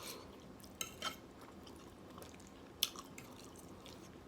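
Quiet wet mouth sounds of eating chicken alfredo with creamy sauce: chewing, with a few short sharp wet clicks and smacks about a second in and again just before three seconds.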